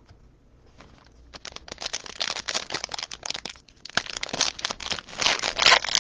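Trading-card pack wrapper crinkling and being torn open, starting about a second and a half in and growing louder.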